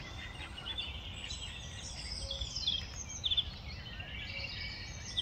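Small songbirds singing and chirping in a busy overlapping chorus of quick high notes and trills, with a run of rapid repeated notes about three seconds in and again near the end. A steady low rumble sits underneath.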